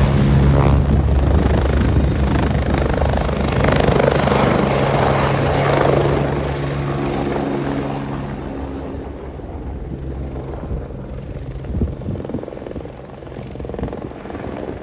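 Helicopter flying close by, its rotor beat loud at first and fading over the second half as it moves away.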